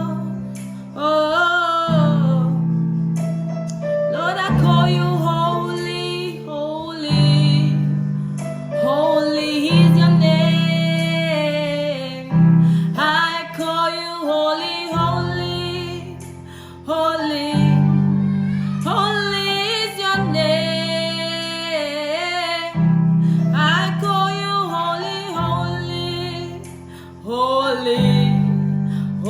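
Worship song: a solo voice singing a slow melody with vibrato over sustained instrumental chords that change every two to three seconds.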